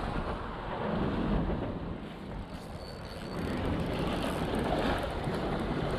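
Wind buffeting the microphone, a steady low rumble, over small waves lapping against the rocks, with a few faint clicks of handling in the second half.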